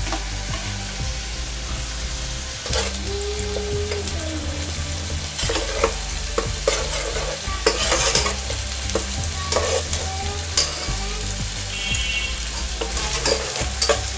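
Prawns and onions frying in hot oil in a pot, sizzling steadily while a spatula stirs and scrapes against the pan; partway through it becomes onions sizzling in oil in a second pot, still stirred. A steady low hum runs underneath.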